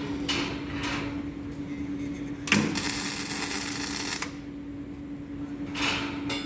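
Electric arc welding: the arc crackling and sizzling in bursts, the longest and loudest lasting over a second in the middle, over a steady hum.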